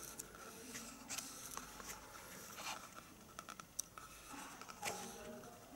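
Faint rustling and scraping of paper being handled, as pages of a book are turned, with scattered small clicks and ticks.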